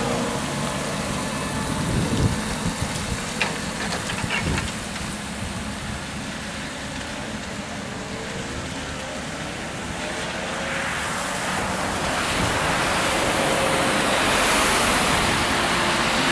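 Škoda 14Tr trolleybus passing and driving away, with tyre noise on a wet road; road and wind noise grow steadily louder in the second half.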